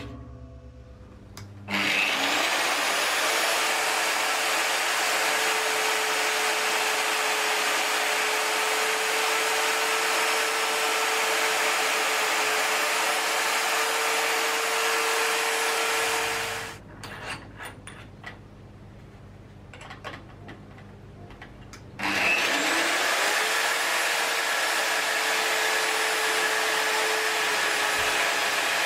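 Evolution magnetic drill's motor spinning up with a rising whine and running steadily as it drills into a steel plate, then stopping after about fifteen seconds. After a few seconds of small clicks and knocks it starts up again and runs on.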